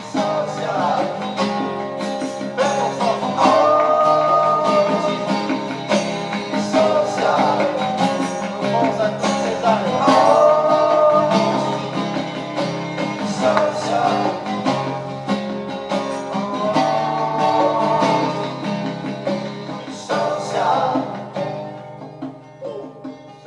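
Acoustic guitar music in an instrumental break of a rock song played campfire-style, with a held melody line recurring over the chords and the music getting quieter near the end.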